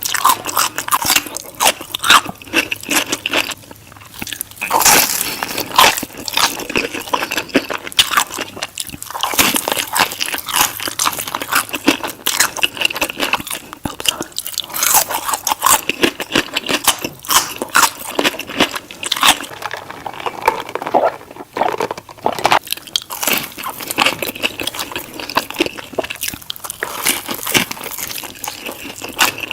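Close-miked eating of crispy fried chicken: repeated crunchy bites and chewing of the fried coating, with dense crackles throughout and brief lulls between bites.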